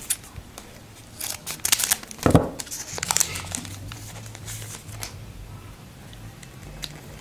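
Trading cards and their foil pack wrapper being handled, crinkling and rustling in several short bursts over a low steady hum.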